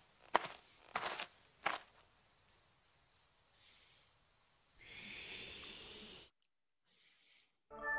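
Cartoon footstep sound effects, three soft steps about two-thirds of a second apart in the first two seconds, over a steady high cricket chirr. About five seconds in a hissing noise rises and cuts off suddenly, and music starts right at the end.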